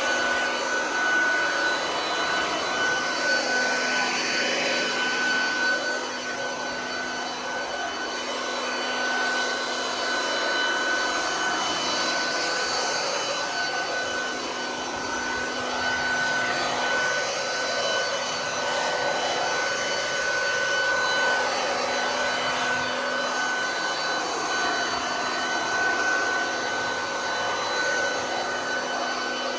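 Ryobi RBV3000CSV 3000 W electric leaf vacuum running steadily, a rushing airflow with a constant high whine from its motor and fan.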